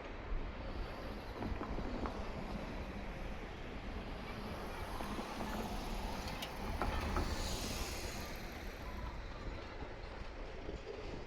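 Meitetsu Seto Line train running past, a steady rush of noise that swells to its loudest about seven to eight seconds in, with a few sharp clicks.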